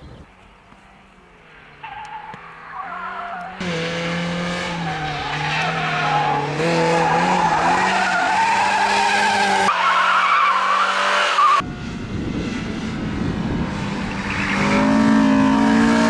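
Cars driven hard through a slalom corner, engines running at high revs with tyres squealing as they slide. It is faint for the first couple of seconds, then loud, and the sound changes abruptly a few times where separate passes are cut together.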